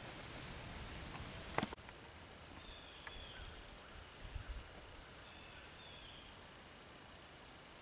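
Quiet woodland outdoor ambience with faint, short high bird chirps twice. A single sharp click comes about a second and a half in, and a few soft low bumps about halfway through.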